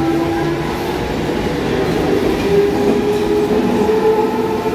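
Electric suburban local train (EMU) running past the platform as it pulls out of the station: wheels rumbling and clattering over the rails, with a steady motor whine that steps higher in pitch about halfway through.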